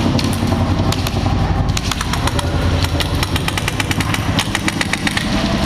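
Airsoft guns firing: a rapid burst of sharp pops about two seconds in and scattered shots before and after, over a steady low rumble.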